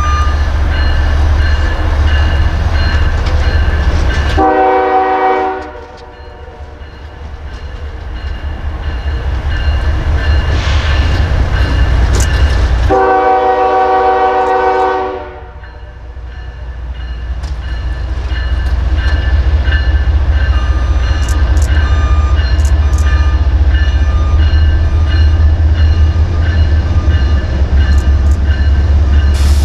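Norfolk Southern freight locomotive's air horn sounding two long blasts about eight seconds apart for a grade crossing. Under it are the crossing bell's repeated ringing and the low rumble of the approaching train, which grows as the locomotive comes right up near the end.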